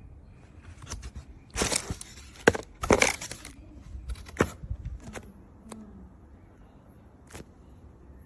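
Scattered sharp clicks with two short bursts of crackling noise, the loudest about two and three seconds in.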